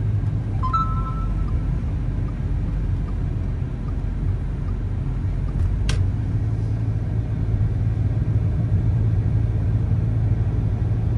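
Steady low rumble of a moving car's engine and tyres, heard from inside the cabin. A brief faint beep sounds about a second in, and a single sharp click comes near the middle.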